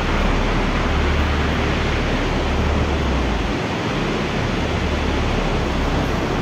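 Steady rushing roar of a tall waterfall plunging down a cliff, with a low wind rumble on the microphone that comes and goes.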